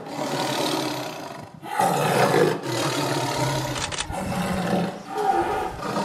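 A big cat growling in a run of harsh, rasping calls, about five of them with short breaks between.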